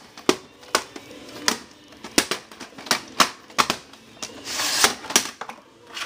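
Irregular sharp plastic clicks and clacks, about two a second, of VHS tapes and their cases being handled, with a short rustling scrape about four and a half seconds in.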